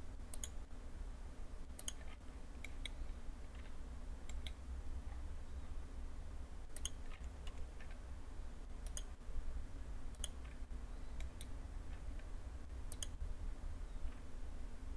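Computer mouse buttons clicking now and then, single sharp clicks a second or more apart, over a faint low steady hum.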